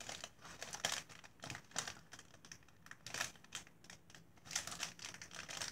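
A thin clear plastic packet of diamond-painting drills crinkling and rustling as it is turned in the hands, in faint, irregular short bursts.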